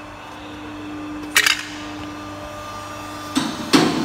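Electric motor of a pipe bender's hydraulic oil pump running with a steady hum. A sharp metallic clink comes about a second and a half in, and two louder knocks near the end.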